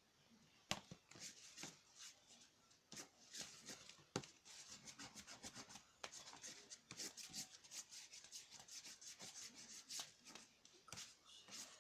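Fingers working a soft body-wash and shaving-cream slime on a paper plate, making faint, quick, repeated wet rubbing strokes, several a second. There are two sharper clicks, about a second in and about four seconds in.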